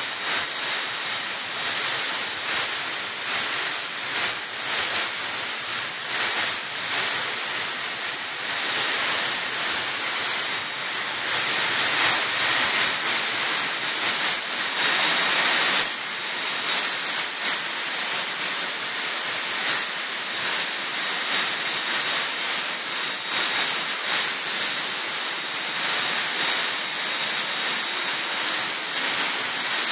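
Laser cutting machine running: a steady, loud rushing noise with a high, thin whine over it. The whine breaks off for about a second midway, then returns.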